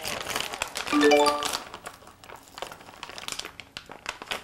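Plastic dog-treat packet crinkling as it is handled. About a second in, a quick rising run of xylophone-like notes is heard as an added sound effect.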